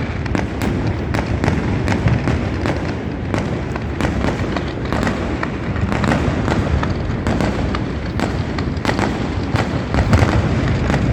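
Many fireworks going off across a city at once: a continuous din of crackling and sharp pops over a low rumble of distant booms, without a break.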